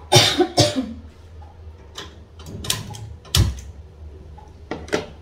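Kitchen handling sounds as a pan of water with corn is set on the stove to boil: about five sharp knocks and clatters of a metal pan and utensils. The loudest come right at the start, and a heavier dull thump falls a little past the middle.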